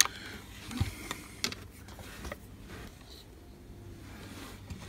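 Faint clicks and light taps of fingers handling a small circuit board, a few in the first couple of seconds, over a low steady hum.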